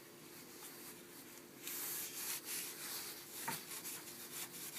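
A rag rubbing dark stain onto a wooden wand turning on a lathe: a steady scuffing over a faint steady hum, getting louder about one and a half seconds in.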